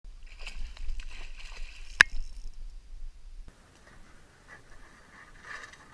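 Wind rumble on the microphone and small knocks and scrapes in a small plastic boat, with one sharp loud click about two seconds in. About halfway through this gives way to faint rustling.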